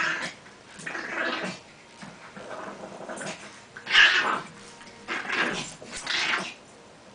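Two dogs play-fighting, with growling in short bursts about a second apart. The loudest comes about four seconds in, and it stops near the end.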